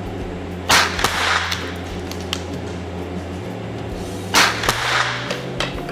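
Two .22 LR rifle shots with Eley sport ammunition, about three and a half seconds apart, each a sharp crack that echoes in an indoor range, with a few fainter clicks after each shot.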